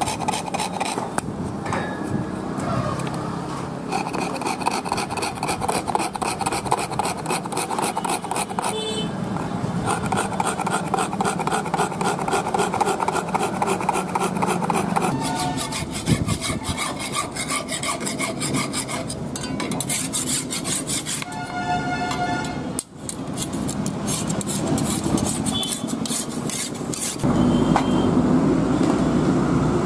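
Hand file rasping back and forth along the edge of a hand-forged steel billhook blade in quick strokes, the thin blade ringing with a metallic tone under the file. Near the end a louder, steady low rumble takes over.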